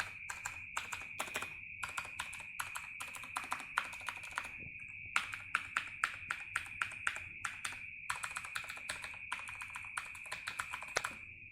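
Razer Green clicky switches on a Razer BlackWidow Tournament Edition keyboard, keys pressed one after another at about three to four a second, each a sharp click. There are two short pauses, about halfway through and again after about eight seconds. A steady high-pitched tone runs underneath.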